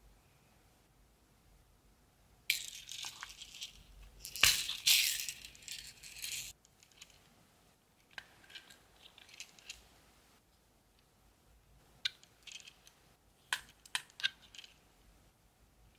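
Loose faux pearls rattling inside a clear plastic compartment case as it is handled, for a few seconds, with one sharp click in the middle. Later come scattered light clicks and a few sharp ticks as metal tweezers pick at the pearls and tap the plastic case.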